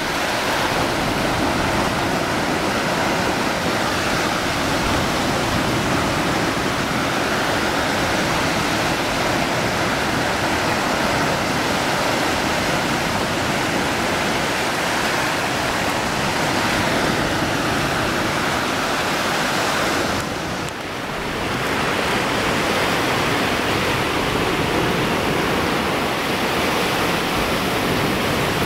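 Waves breaking on a sandy beach: a steady, dense rush of surf, dipping briefly about twenty seconds in.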